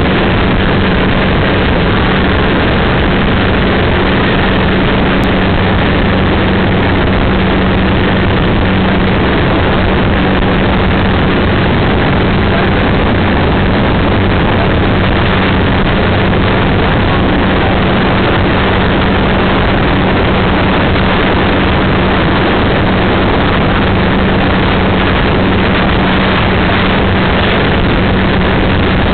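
Motorboat engine running steadily with a low hum, under a loud, constant rush of wind and water.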